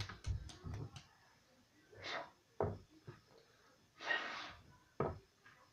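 A child's breathy blows and sniffs, a second or two apart; the longest is an exhale through pursed lips about four seconds in. Light clicks and knocks of things being handled come in the first second.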